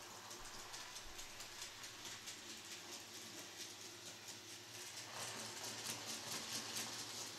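N scale model trains running on the layout: their wheels click rapidly and evenly over the rail joints, over a low steady hum. The clicking grows louder about five seconds in, as a train comes closer.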